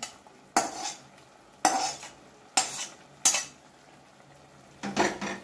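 A steel plate clanking against a kadai: about five sharp metal knocks, each ringing briefly, as cut okra is knocked off the plate into the pan.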